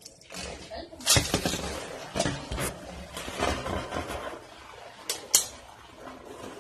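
Two Beyblade Burst spinning tops, Cho-Z Valkyrie and Geist, whirring and rattling around a plastic stadium and clashing with several sharp clacks, the loudest about a second in and about five seconds in.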